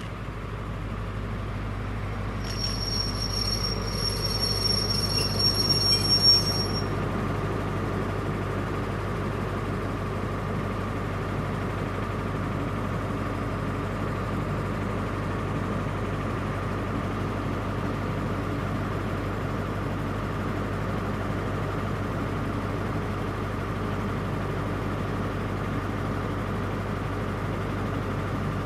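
Class 43 HST power car running into the platform: a high-pitched brake squeal of several tones for about four seconds, starting a couple of seconds in, as the train slows. Under it and after it the power car's diesel engine runs with a steady hum as the train draws to a stand.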